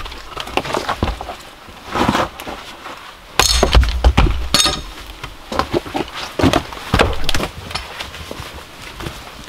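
Pieces of dry firewood knocking and clattering together as they are handled, with a string of wooden thunks and a loud, bright clatter about three and a half seconds in.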